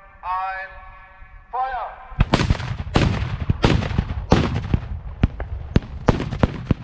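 A salute of black-powder Böller saluting guns: about a dozen loud bangs fired in quick, irregular succession, starting about two seconds in and running for roughly four seconds.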